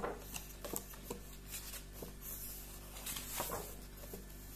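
Magazine pages being turned and handled: faint, scattered paper rustles and soft clicks over a steady low hum.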